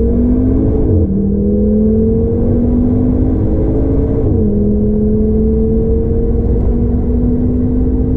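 Audi TT RS 8J's turbocharged 2.5-litre five-cylinder engine accelerating hard, heard from inside the cabin, its pitch climbing through the gears. Two quick upshifts drop the revs, about a second in and again about four seconds in; after the second the pitch rises only slowly.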